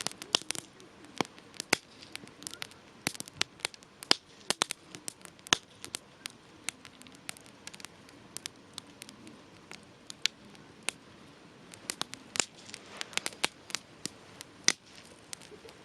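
Wood campfire crackling, with irregular sharp pops scattered throughout, several of them loud.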